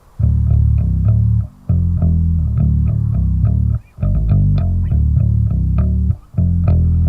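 Bass guitar riff in short phrases of low plucked notes, breaking off briefly three times, leading into full heavy rock music near the end.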